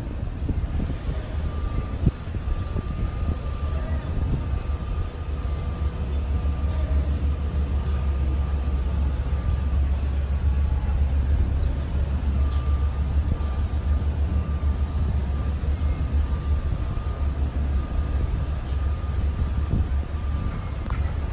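Low, steady rumble of a jet airliner's engines passing high overhead, swelling slightly after a few seconds.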